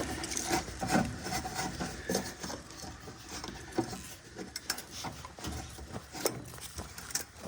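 Hand tools scraping and rubbing on old car parts, with scattered light clicks and knocks.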